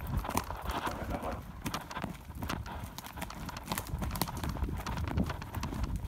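Rapid running footsteps thudding and crunching downhill over a conifer-forest floor of needles and dead twigs.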